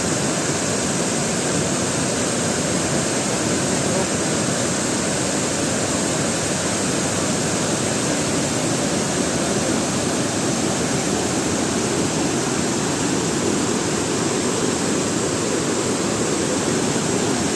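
Waterfall water crashing down in a loud, steady rush of noise that never changes.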